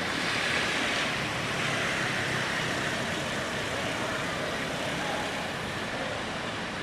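Steady rushing outdoor background noise with no distinct event, of the kind made by wind in the trees or distant traffic.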